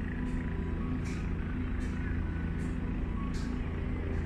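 A steady low engine drone with several steady pitched hums, and a short faint hiss repeating about every three quarters of a second.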